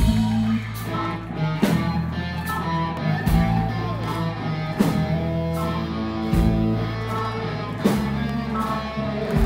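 Live rock band playing: electric guitar and bass over drums, the bass note changing about every second and a half under steady drum hits.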